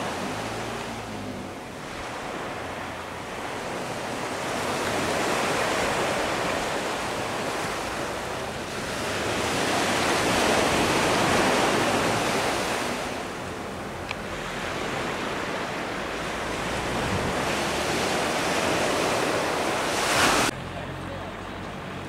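Sea waves breaking and washing up a shingle beach, the surf swelling and ebbing every few seconds. It cuts off suddenly near the end.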